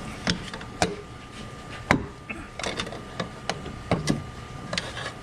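Irregular metallic clicks and knocks, about ten over five seconds, from a socket wrench with a pipe slipped over its handle as a cheater bar, being set and heaved on against a seized exhaust manifold bolt.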